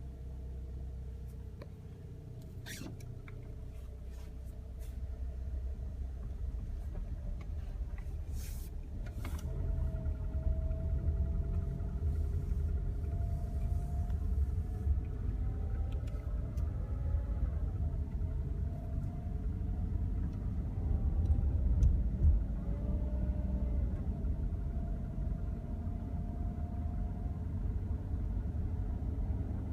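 Four-cylinder Toyota Camry engine running cold with a steady low rumble, growing louder about ten seconds in. The owner calls it valve/lifter noise and hears it in the morning or whenever the engine has cooled down.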